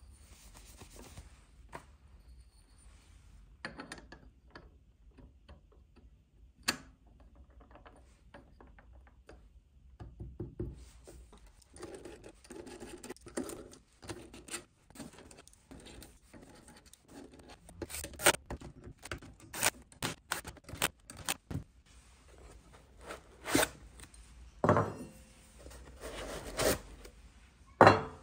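Hands handling Snapmaker Artisan parts and packaging: scattered clicks and knocks with stretches of rubbing and scraping. The sounds are sparse at first and grow busier after about ten seconds, with the loudest knocks near the end.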